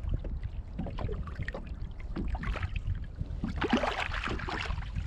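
Water lapping and slapping against the hull of a fishing kayak, with wind rumbling on the microphone and many small ticks and splashes; a louder splash of water comes about three and a half seconds in.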